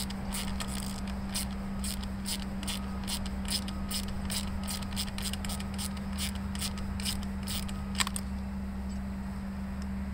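Ratcheting wrench clicking steadily, about three clicks a second, as a bolt holding the air-cleaner housing and carburetor is worked loose, ending with one sharper click about eight seconds in. A steady low hum runs underneath.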